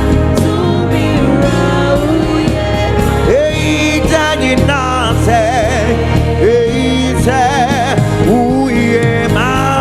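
Live gospel worship music: a lead singer over a band with a steady bass line, the voice moving in quick wavering runs.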